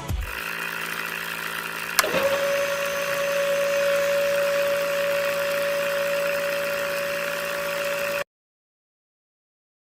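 Small electric motor switched on with a click about two seconds in, spinning up quickly to a steady high whine over a faint mechanical hum; the sound cuts off abruptly near the end.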